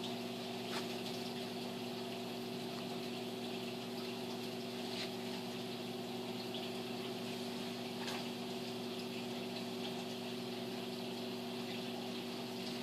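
Reef aquarium's pumps humming steadily over the rush of circulating water, with a few faint ticks.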